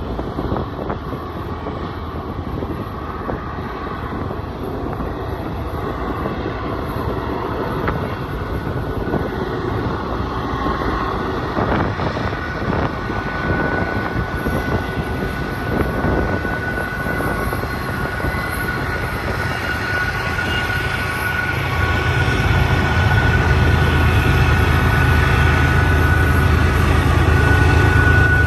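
Long BNSF intermodal freight train rolling past, with wind on the microphone. A steady high tone joins the rumble of the cars about halfway through, and a deeper, louder rumble builds over the last several seconds.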